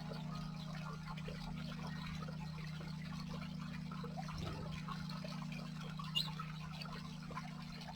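Water trickling and splashing down a small artificial stream, over a steady low hum. There is a brief splash about four and a half seconds in and a short high chirp about six seconds in.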